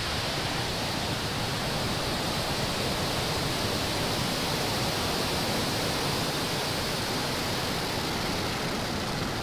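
Falcon 9 first stage's nine Merlin 1D engines firing just after liftoff: a steady, even rushing rumble that spreads from deep bass up to a high hiss.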